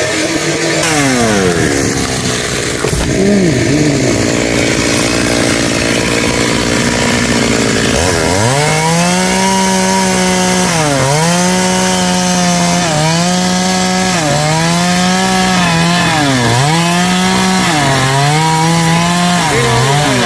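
Two-stroke chainsaw easing off and idling, then revving up about halfway through and held at full throttle while cutting wood, its pitch dipping every second or two as the chain bites under load.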